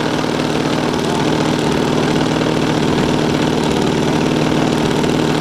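A small engine idling steadily at an even speed.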